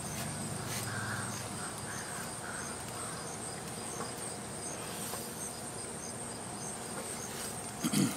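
Insects chirping outdoors: a steady high-pitched buzz with faint, evenly repeated chirps. A short soft knock comes near the end.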